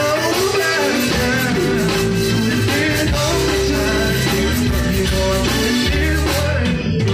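Live zydeco band playing an upbeat dance number, with electric guitar, bass, drums and a rubboard scraping along, and some singing. The band drops out briefly near the end.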